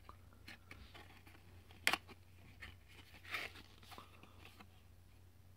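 Stiff cardboard pop-up trading card being unfolded and handled: a few light clicks and rustles, with one sharp snap about two seconds in and a short rustle a little later.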